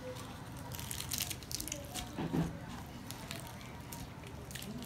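Fingers tearing a puffed, deep-fried luchi, its thin crisp crust crackling in a cluster of short crackles about a second in and a few more near the end. A short low sound about halfway through is the loudest moment.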